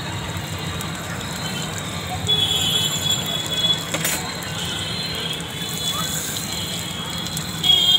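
Paneer momos sizzling as they fry in butter in a flat pan, with metal tongs and a round iron press knocking and scraping against the pan a few times, including a sharp knock about four seconds in.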